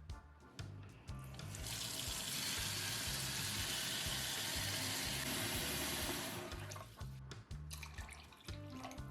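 Water running from a tap into a sink, starting about a second and a half in and stopping about five seconds later, over background music with a steady bass line.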